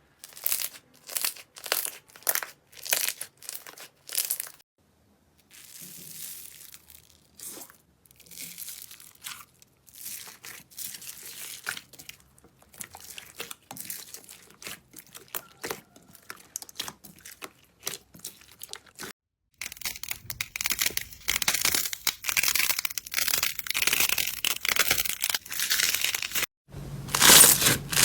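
Slime being handled, pressed and pulled by hand, giving a run of short sharp crackling pops. The texture changes at cuts about 5, 20 and 27 seconds in, thinner in the middle stretch and denser near the end.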